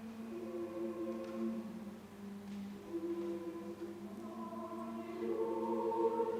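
Choir singing long, held chords that shift slowly from one to the next, growing louder about five seconds in as the upper voices come in stronger.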